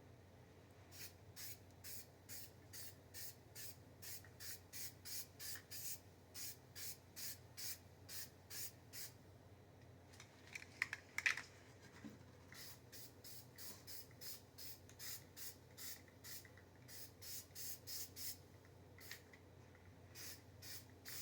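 Spray paint going on a mower deck in a quick run of short hisses, about two or three a second, with a pause and a couple of louder sharp clicks about eleven seconds in before the short hisses start again.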